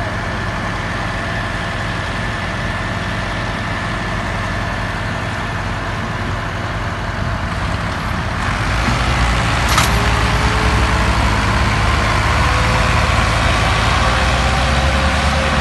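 Farm tractor diesel engines running under load while hauling a heavy trailer of sugarcane. The engines grow louder a little past halfway, with one sharp click about ten seconds in.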